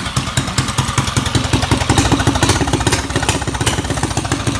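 A 212cc single-cylinder four-stroke mini bike engine running steadily, with a rapid, even putter of firing pulses.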